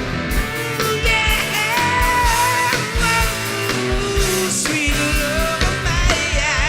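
Rock-style show band music: drums keep a steady beat under a melodic lead line.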